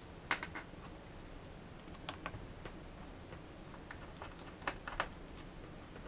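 Scattered light clicks and taps, some in quick pairs, from small parts and a screwdriver being handled while a Mac Mini is taken apart. The busiest cluster comes late.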